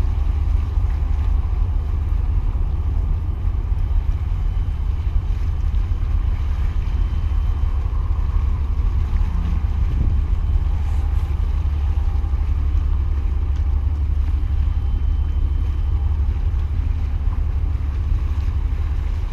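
Steady wind buffeting the microphone, a constant low rumble, with sea water washing against the concrete breakwater blocks beneath it.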